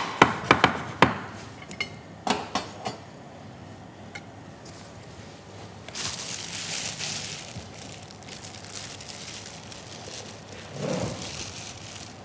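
A few sharp clinks and knocks of glass and crockery in the first three seconds, then a soft rustle of ka'ak breadcrumbs as gloved hands press chicken breast cutlets into them in a glass dish.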